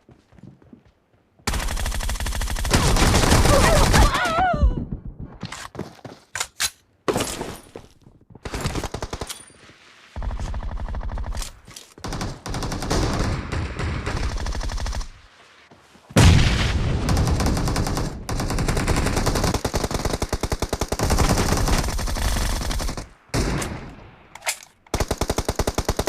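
Automatic gunfire in a video game, rapid shots in several long bursts of a few seconds each, broken by short pauses.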